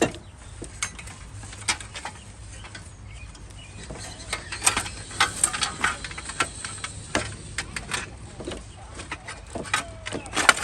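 Hand ratchet wrench clicking in short, irregular runs, with sharp metal clicks of tools on the bolts of a brake pedal assembly.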